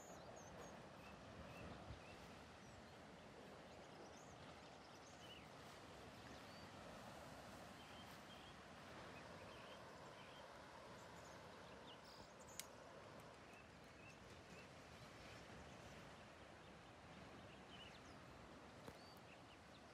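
Faint, steady wash of distant surf breaking on the rocky cliffs below, with scattered faint bird chirps and one sharp click about halfway through.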